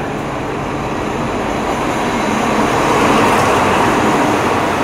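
Diesel locomotive hauling passenger carriages into the station, approaching and passing close by on the platform track; its engine and wheel noise grows louder and peaks about three seconds in as the locomotive goes past.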